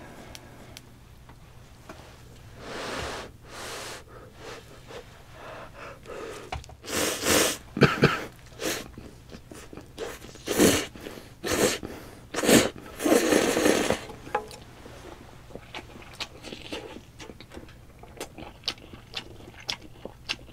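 Close-miked eating of spicy instant ramen: a few breathy puffs, then a run of loud slurps as a mouthful of noodles is sucked in through the middle, then quiet chewing with small wet clicks near the end.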